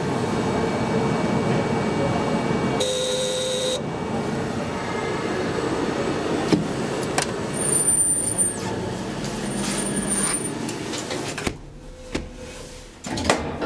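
DEVE hydraulic elevator car travelling in its shaft: a steady mechanical running noise, with a short buzzing tone about three seconds in and faint high squeals around eight and ten seconds. The noise stops abruptly about two seconds before the end as the car comes to rest, followed by a few clicks and a knock.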